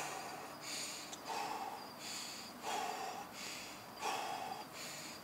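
A man breathing hard and fast, winded from doing push-ups: a regular run of heavy breaths in and out, about one every half second to a second.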